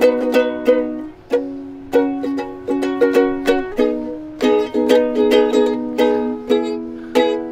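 Ukulele strummed in chords, a quick steady strumming rhythm of sharp strokes that ring on, broken by a couple of short pauses.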